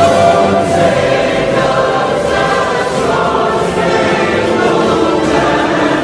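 Choral music: voices holding sustained chords that shift slowly, some lines gliding downward partway through.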